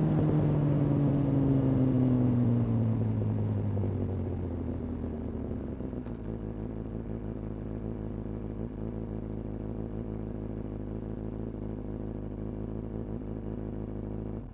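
Kawasaki ZX-6R inline-four with a Hindle aftermarket exhaust, its revs falling back slowly for about six seconds and then settling into a steady idle. The sound stops abruptly near the end.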